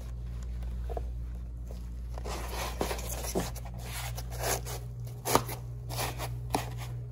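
Irregular scraping and rustling of foam pipe insulation on a PEX water line, rubbed against spray-foam insulation and a wooden stud as a hand pushes the line into the wall, with a few small clicks; the sharpest comes about five seconds in.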